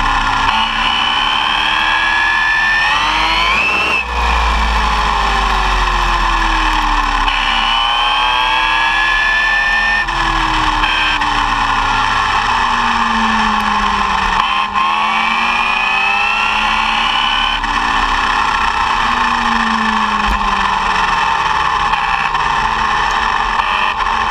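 Arrma Typhon 6S brushless electric RC buggy at speed, heard from a camera mounted on the car. The motor and drivetrain whine climbs in pitch under throttle and falls back three times, over a steady rushing noise.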